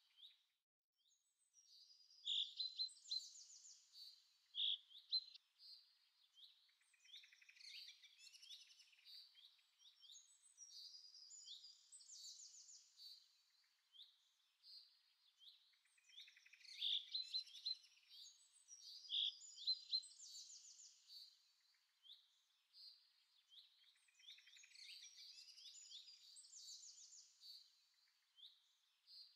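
Quiet birdsong: several birds chirping and trilling high-pitched. The same run of calls comes round again about every 14 seconds, as in a looped nature-sound track.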